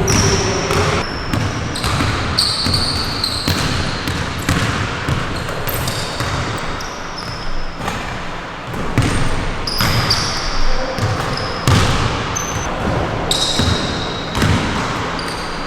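Indoor basketball play: a basketball bouncing on a gym floor in repeated, irregular thuds, with short high squeaks of sneakers on the hardwood between them.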